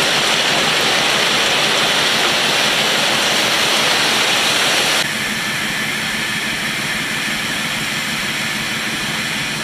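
Railway hopper cars dumping crushed-stone ballast onto the track as the train rolls, a steady rushing hiss of pouring gravel. About five seconds in the sound cuts abruptly to a quieter, duller rush with a faint low engine hum.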